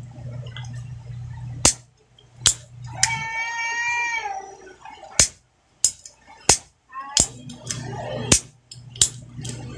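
Gas stove valve's piezo spark igniter snapping with several sharp clicks as the knob is worked to test the reassembled ignition. About three seconds in, an animal gives one long call that rises slightly and then falls in pitch.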